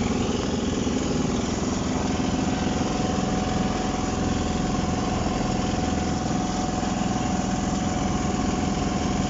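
Large backhoe's diesel engine running steadily at a low, even speed. A thin steady whine joins about two seconds in.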